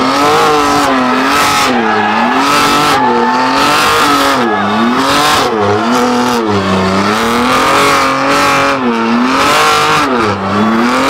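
A car engine revving hard, its pitch swinging up and down about once a second, over tire squeal, as in a burnout or drifting.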